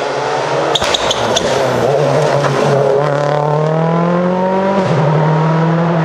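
Ford Focus WRC rally car's turbocharged four-cylinder engine at full throttle as the car passes. The engine note climbs steadily, then drops sharply on an upshift a little before the end. A few sharp cracks come about a second in.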